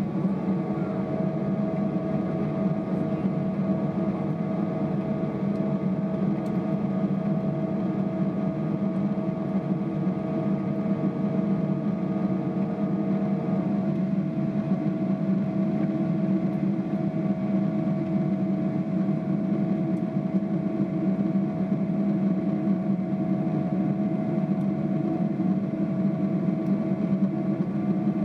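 Steady cabin noise of a Boeing 777-300ER powered by GE90-115B turbofans: a deep rumble of engine and airflow with several steady humming tones, two of which cut out about halfway through.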